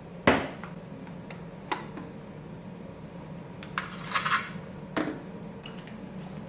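Dishes and utensils clinking and knocking as they are handled: a sharp clink about a quarter second in, a few lighter taps, and a brief rattle around four seconds in.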